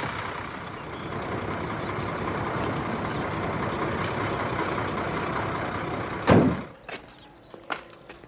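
Fire engine's diesel engine running steadily. About six seconds in comes one loud, sudden thump, after which the engine noise is gone and only a few faint clicks are left.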